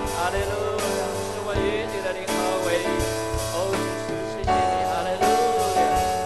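Live church worship band music: sustained chords, with singing voices gliding over them.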